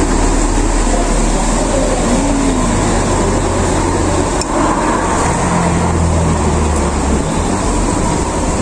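Wind buffeting the phone's microphone: a steady, loud low rumble with a hiss over it.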